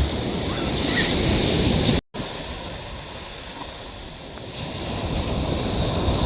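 Ocean surf washing in, with wind on the microphone. The sound drops out completely for a moment about two seconds in, then comes back quieter and builds again.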